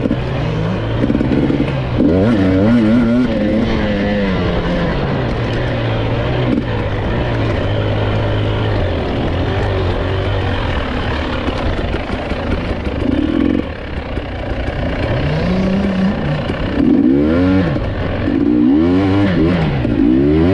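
GasGas EC 300 TPI two-stroke enduro motorcycle engine, heard close up from on board, revving up and down as the rider works the throttle on a trail. There are quick bursts of rising and falling revs near the start and again near the end, with steadier running in between.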